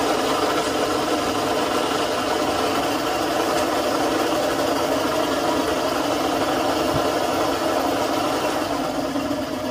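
Steady engine-like mechanical drone, running evenly at an idle without changing.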